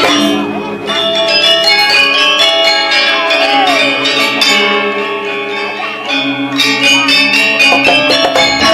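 Balinese gamelan playing an instrumental tabuh kreasi: bronze metallophones and gongs ringing in dense, shimmering tones. The low, heavy part drops away just after the start, and the full ensemble comes back in about six and a half seconds in.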